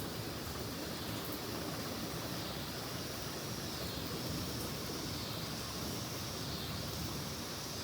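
Heavy rain pouring down in a thunderstorm, a steady even hiss with no thunderclap.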